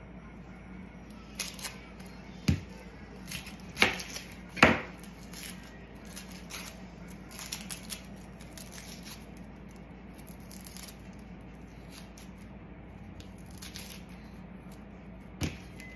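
Dry onion skin crackling and tearing as it is peeled off an onion with a small knife, in scattered short crackles and clicks, the loudest a pair about four seconds in. A faint steady low hum lies underneath.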